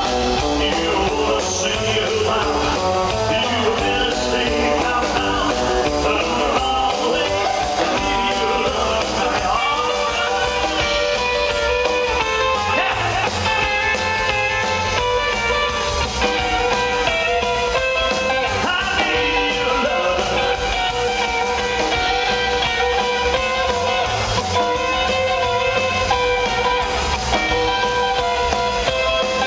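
Live rockabilly band playing: electric guitar, upright double bass and drum kit keep a steady driving beat under a man's lead vocal.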